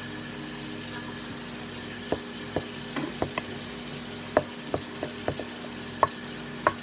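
Spatula scraping and tapping against a black skillet as a cooked pancake-style cake is worked loose and slid out: about a dozen short sharp clicks and scrapes starting about two seconds in, over a faint steady sizzle from the hot pan.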